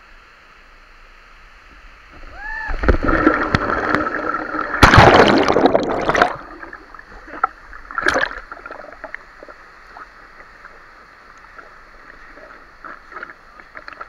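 A person plunging into a waterfall pool: a loud rush of water and splashing builds about two and a half seconds in and peaks about five seconds in, with another brief splash near eight seconds. After that there is sloshing and gurgling at the surface over the steady rush of the waterfall.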